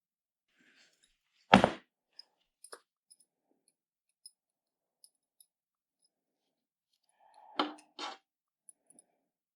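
Tools or pieces being handled on a workbench: one loud knock about a second and a half in, a few small clicks, then two knocks in quick succession near the end.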